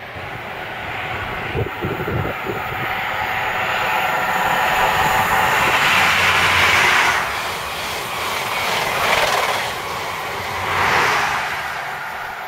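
Class 43 HST power car passing at speed, its diesel engine running with a steady high whine over the rush of the train. The sound builds to its loudest about six to seven seconds in, then swells twice more as the coaches go by.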